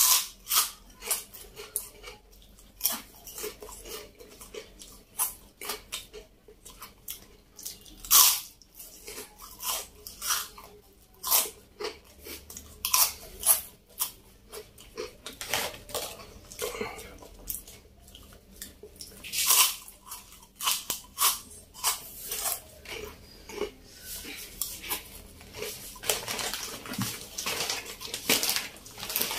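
Close-up crunching and chewing of crispy fried wheel chips (wheel-shaped fryums): irregular sharp crunches, several a second, with a denser crackling stretch near the end.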